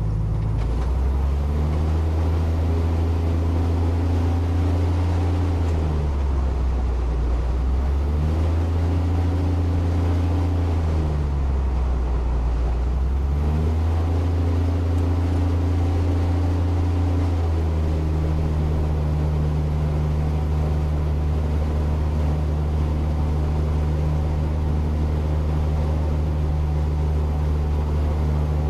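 Piston engine of an aerobatic plane, heard from inside the cockpit with the plane standing still, revving up and dropping back three times, then running steadily at a higher idle.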